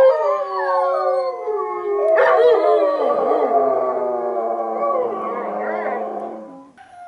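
Several Alaskan malamutes howling together, many long wavering howls overlapping. More voices join, louder, about two seconds in, and the chorus dies away near the end.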